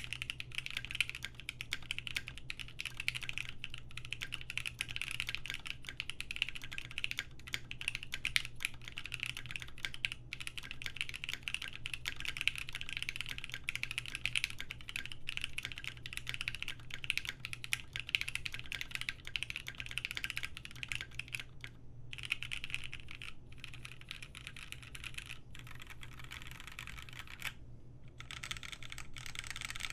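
Fast, continuous typing on a Beak 6.5 custom mechanical keyboard: lubed, filmed Gateron Black Ink v2 linear switches on a polycarbonate plate, with GMK keycaps. A fan's steady hum sits underneath, and the keystrokes thin out briefly twice in the last third.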